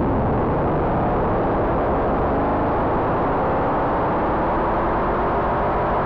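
Eowave Quadrantid Swarm hybrid synthesizer sounding a dense, rough, noisy drone at a steady level.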